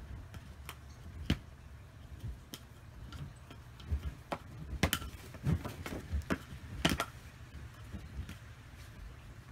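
Wooden nunchaku being swung and caught, giving irregular sharp clicks and clacks that are busiest in the middle, over a low steady rumble.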